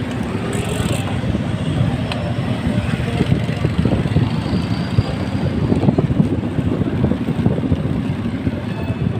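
Wind noise buffeting the microphone of a moving bicycle, over road traffic. The noise is steady and uneven.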